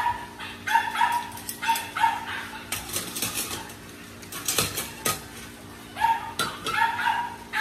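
A dog barking off and on in short repeated barks, mostly in the first couple of seconds and again near the end, with a few sharp clinks of a spoon against dishes in between.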